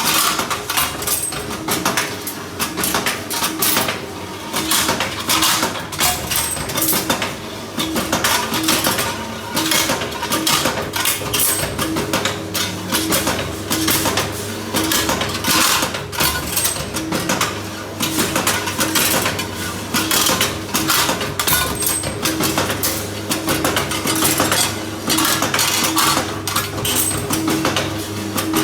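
Automatic rebar straightening and cutting machine running, steel rod rattling and clanking densely through the rollers over a steady motor hum.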